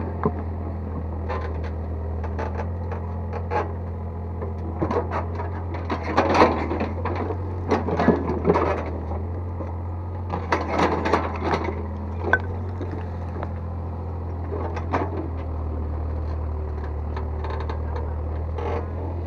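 Excavator's diesel engine running steadily, with bouts of scraping and knocking as the bucket works soil and rubble into the hole, busiest from about six to nine seconds in and again around eleven seconds.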